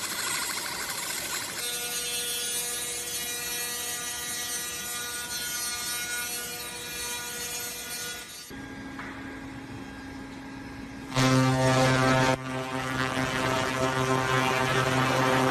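Pulsed laser cleaning machine buzzing steadily as it ablates rust from metal. The pitch of the buzz jumps abruptly a few times. About 11 seconds in it becomes a louder, lower drone.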